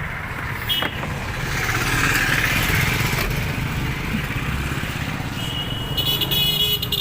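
A motor vehicle engine running steadily in the background, with short electronic beeping about a second in and again, pulsing, near the end.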